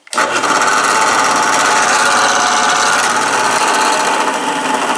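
Delta 8-inch bench-top drill press switched on: its 1/4 HP induction motor starts at once and runs steadily, driving the spindle through the belt and step pulleys on the middle speed. A loud, even mechanical hum and whir with a rushing rattle.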